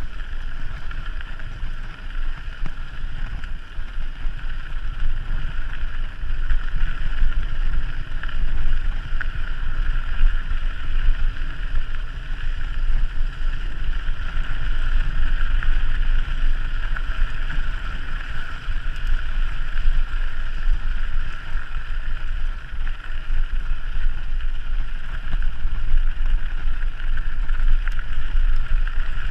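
Wind buffeting the microphone of a camera carried on a moving mountain bike, a rumbling low pulse over a steady rushing hiss.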